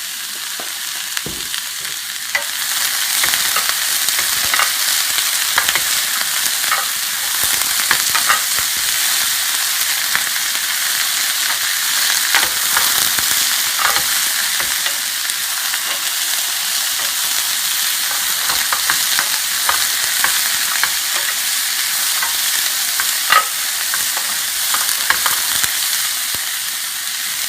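Mixed vegetables stir-frying in olive oil in a frying pan over high heat: a steady sizzle with scattered light clicks, getting louder about two seconds in.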